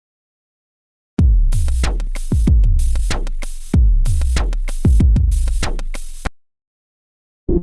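A drum machine transition loop: deep bass kicks that drop in pitch, under sharp snare and hi-hat hits. It starts about a second in, runs about five seconds and cuts off suddenly. Near the end a new rhythmic synth pattern begins.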